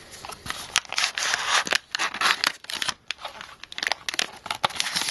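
Small cardboard box being opened and a plastic anti-static bag pulled out and handled: irregular crinkling and rustling with sharp clicks and scrapes of card.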